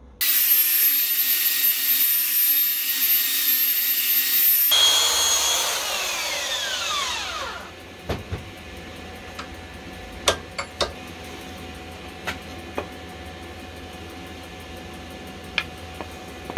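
Woodworking power tool running at speed with a high-pitched whine. About five seconds in it is switched off, and its pitch falls as the motor winds down over about three seconds. A few sharp light knocks follow.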